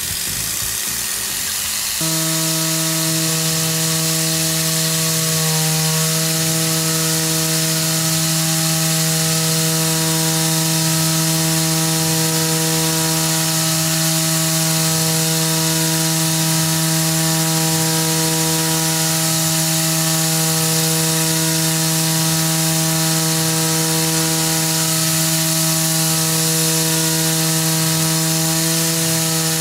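Tormach 440 CNC mill cutting aluminum with a Tormach ShearHog face mill at about 10,000 RPM. The tool enters the cut about two seconds in, and from then on there is a steady pitched hum over a high hiss.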